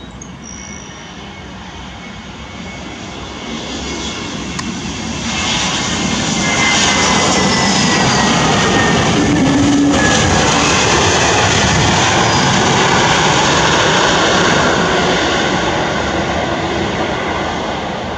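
Airbus A320neo with Pratt & Whitney PW1100G geared turbofan engines landing. The jet engine noise builds as it comes in and touches down, is loudest for several seconds as it rolls past, then fades as it slows down the runway.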